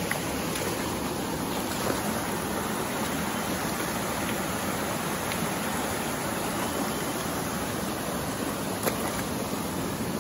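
A clear river running steadily with an even rushing, and a light knock about two seconds in and another near the end.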